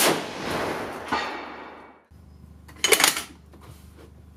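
Desert Tech HTI bullpup rifle firing one large-calibre shot, the report sudden and very loud and ringing on for about two seconds. About three seconds in, a quick run of sharp metal clicks as the bolt is worked.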